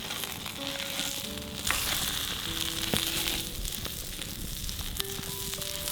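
Potato hash sizzling as it fries in a pan, a steady hiss, with soft background music playing a slow melody.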